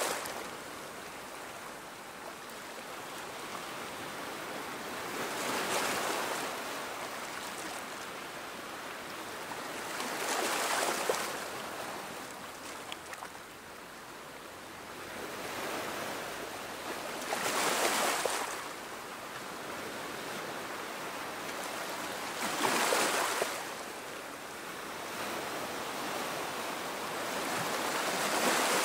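Small sea waves gently lapping on a sandy beach and washing over low rocks: each wave swells into a soft rushing hiss about every five to six seconds, then falls back.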